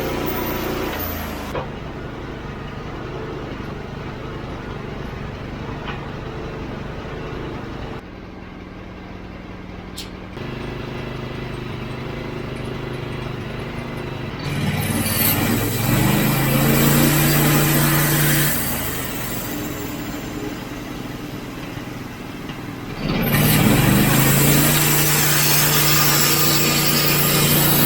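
Portable bandsaw mill's gas engine running, revving up twice and settling into a steady, loud pitch as the band blade cuts through a knotty spruce log with a hiss of sawing; between cuts the engine runs lower and quieter. The sound changes abruptly several times.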